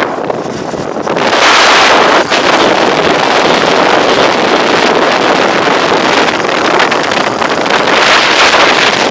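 Loud, steady rush of wind over a phone microphone on a moving motorcycle. It dips briefly at the start and comes back strong about a second in.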